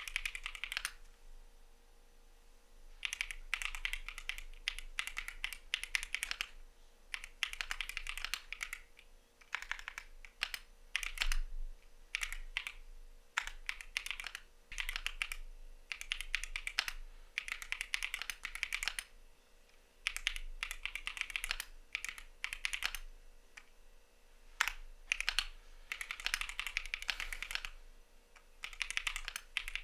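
Typing on a CIDOO V75 mechanical keyboard with Matte switches: quick runs of keystroke clacks in bursts of a second or two, broken by short pauses.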